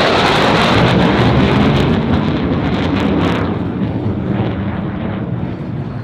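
F-35B Lightning II's single F135 turbofan engine making loud jet noise on a high-speed pass, strongest for the first three seconds and then fading as the jet pulls away.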